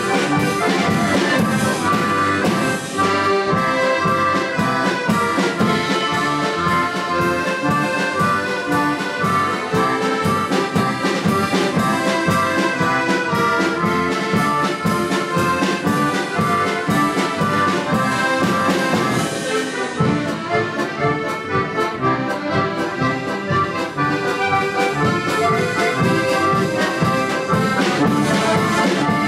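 An accordion orchestra playing an ensemble arrangement together: many accordions sounding sustained chords and moving parts over a steady rhythmic pulse. The music eases off somewhat about two-thirds of the way through, then comes back up to full.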